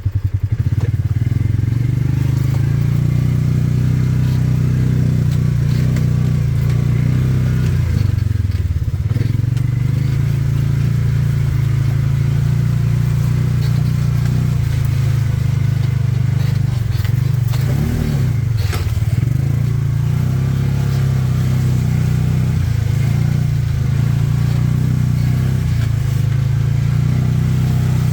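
Vehicle engine running steadily under load while driving on a track, with two brief drops and rises in engine speed partway through.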